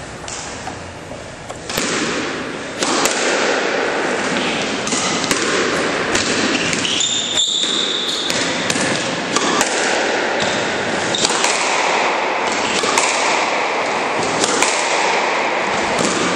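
Squash rally: repeated sharp knocks of the ball off the racket and the court walls, over a steady noisy background, with a short high squeak about seven seconds in.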